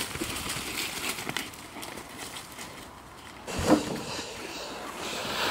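Footsteps and running pigs rustling through dry fallen leaves, with a short grunt about three and a half seconds in.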